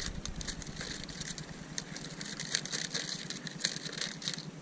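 Thin plastic drink bottle rigged as a fishing float, crackling and ticking lightly and irregularly as it and its line are handled.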